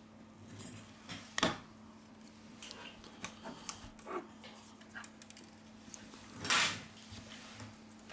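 Small repair tools and phone parts being handled on a workbench during smartphone reassembly: scattered light clicks and taps, with two louder brief noises about a second and a half in and near six and a half seconds in, over a faint steady hum.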